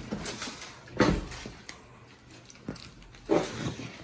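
Large cardboard TV box being handled and shifted, with two loud thumps, one about a second in and one near the end, and quieter scuffing of cardboard between them.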